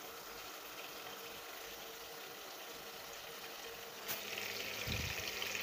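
Chicken pieces frying in hot oil in a pan, a steady soft sizzle. A light knock comes about four seconds in, after which the sizzling is louder.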